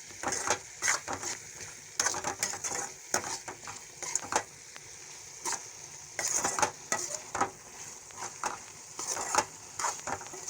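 A spoon scraping and knocking irregularly in a pan as diced beetroot with freshly added ginger-garlic paste is stirred, over a steady sizzle.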